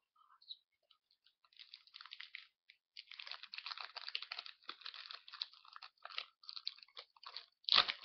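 The wrapper of a Pokémon card sample pack crinkling and tearing as it is opened by hand: a few light ticks at first, then steady dense crackling, with the loudest crackle near the end.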